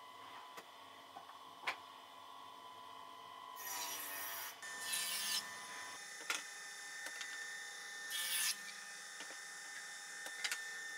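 Wood pieces and the crosscut sled sliding and scraping across a table saw's top in four short strokes, with a few sharp light knocks as blocks are set down. The saw itself is not running.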